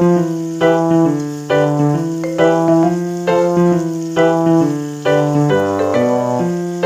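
Background piano music: a melody of struck notes over sustained lower chords.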